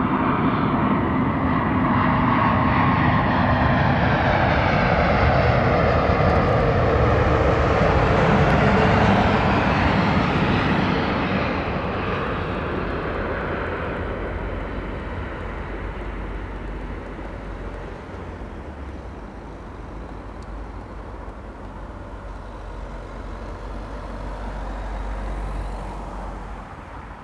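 Airbus A350-900 airliner's Rolls-Royce Trent XWB turbofans as it comes in to land: jet noise with a falling whine that builds to a peak about nine seconds in, then fades away.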